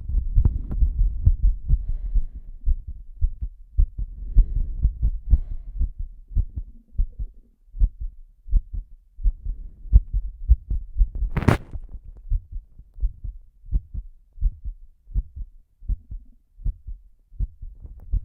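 A person's heartbeat after a breath-hold, a steady train of low thumps, pounding hard at first and growing softer and more spaced out. Faint breathing can be heard a few seconds in, and there is one sharp rustling noise about eleven seconds in.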